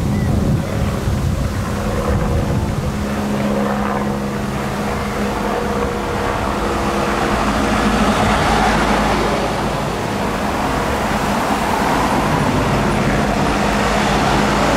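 Police convoy vehicles driving past: a steady engine hum under tyre and road noise that swells in the second half.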